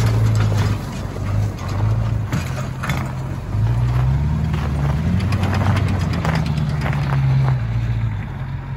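Pickup truck engine running while towing a boat trailer over snow, its pitch rising and falling with the throttle.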